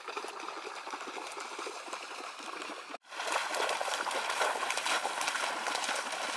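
Shallow floodwater sloshing and trickling, with many small splashy ticks. The sound breaks off sharply about three seconds in and comes back louder.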